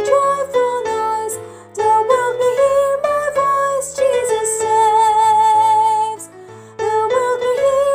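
Music: a woman singing the mezzo-soprano part of a choral arrangement over its accompaniment track, holding one long note with vibrato midway. The music drops off briefly near the end.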